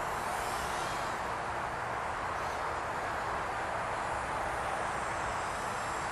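Steady hiss of outdoor background noise picked up by an auto-gain microphone, with the faint high whine of a Tinyhawk 2 micro FPV quadcopter's motors rising and falling in pitch as it flies.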